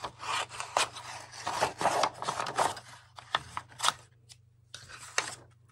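Scissors cutting through cotton fabric and paper: a quick run of snips and rustling that stops about four seconds in, with only a few light ticks after.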